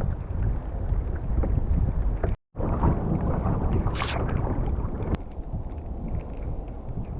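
Wind buffeting the microphone over water sounds around a sea kayak. The sound drops out completely for a moment about two and a half seconds in, and there is a short hiss about four seconds in.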